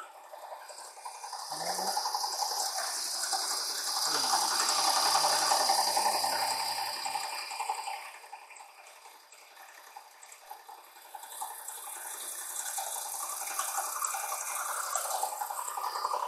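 End mill in a Bridgeport-style milling head roughing out a steel press brake die on a metal planer mill, a steady cutting noise. It grows louder, eases off around the middle, then builds again.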